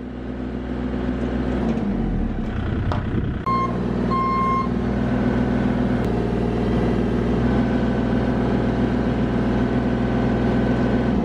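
Bobcat E35 mini excavator's diesel engine running steadily under hydraulic load, heard from inside the cab and building up over the first couple of seconds. Two short electronic beeps sound about three and a half seconds in.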